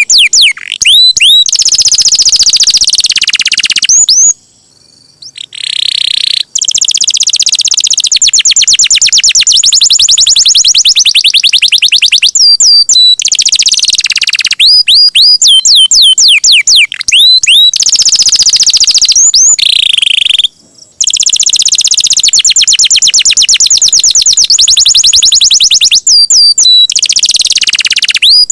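Domestic canary singing loudly: runs of repeated falling whistled notes alternating with long, very fast rolling trills lasting several seconds each, broken by two short pauses.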